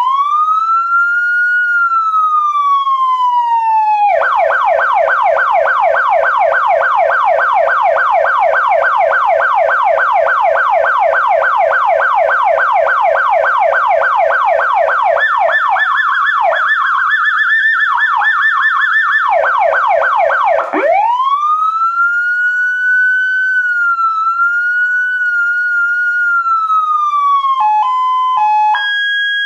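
Elfir Zura PS100r electronic police siren cycling through its tones. It opens with a slow wail rising and falling, switches about four seconds in to a rapid yelp that runs for about ten seconds, and has a rougher warbling stretch around the middle. After that comes another slow, wavering wail, and near the end a stepped two-note hi-lo tone.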